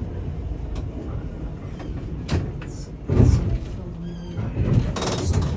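A 1911 electric tram running, heard from inside the car: a steady low rumble from the wheels and running gear, with scattered clicks and knocks. A heavy knock comes about three seconds in, followed by a short whine and a rush of noise near the end.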